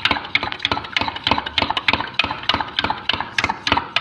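A spoon stirring hair oil into water in a drinking glass, clinking rapidly against the glass, about five clinks a second.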